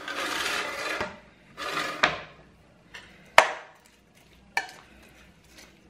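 Marinated tofu and vegetable pieces being scraped and tipped out of a ceramic bowl onto a parchment-lined baking tray: a rustling slide in the first second, another about two seconds in, then a few sharp clinks and knocks of kitchenware, the loudest about halfway through.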